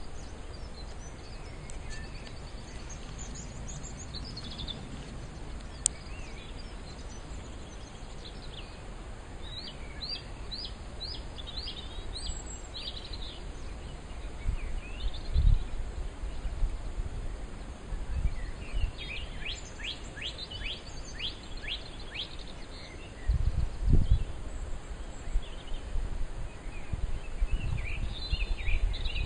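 Outdoor ambience with small birds chirping, singing twice in phrases of quick downward-sliding notes, over a steady low background noise. Low rumbles rise out of the background a few times in the second half.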